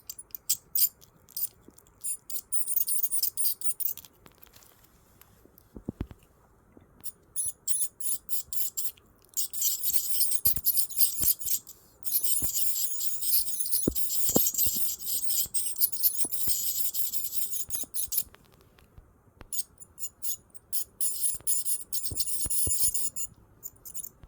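Electric dental scaler buzzing with a high-pitched whine in short bursts and longer runs as it works on a cat's teeth, switching on and off repeatedly, with a long near-continuous run in the middle.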